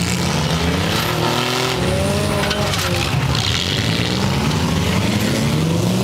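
Several front-wheel-drive demolition derby cars running and revving at once, their engine pitches rising and falling as they push against each other, over a steady mix of engine noise.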